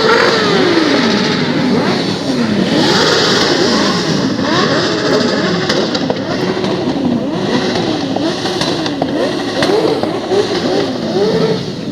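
Off-road motorcycle engines revving, several at once, their pitch rising and falling about once a second as the riders work the throttle.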